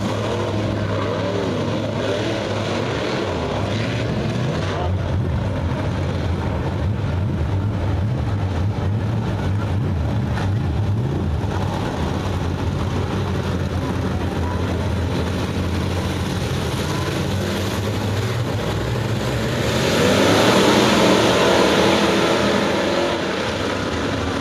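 Pack of crate V8 dirt-track modified race cars running around the clay oval: a steady engine drone that rises and falls in pitch as the cars work through the turns. About 20 seconds in, it swells louder for a few seconds as the pack comes by closer.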